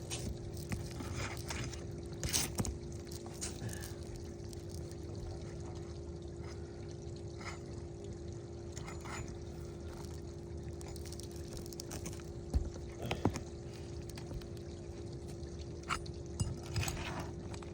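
Scattered scrapes and sharp taps of hand tools working under asphalt roof shingles to break their seals and free them, over a steady low hum.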